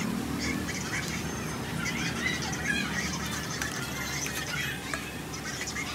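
Hot oil sizzling and bubbling in a large wok as potato and mung bean fritters deep-fry, a steady hiss with short chirping sounds over it.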